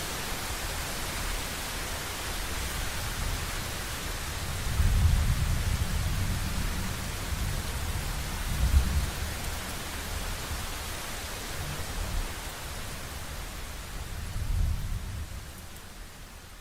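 Steady rain hiss with low rolling thunder swelling several times, loudest about five and nine seconds in, then fading out near the end.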